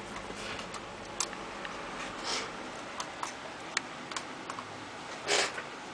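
Small screwdriver working the screws out of a laptop keyboard: scattered light clicks and ticks of metal on screw and plastic, with a brief louder scrape about five seconds in.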